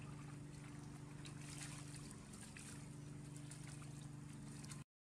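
A steady low mechanical hum, with faint splashes and drips of water as a wet cloth is wrung out over a basin. The sound cuts off abruptly just before the end.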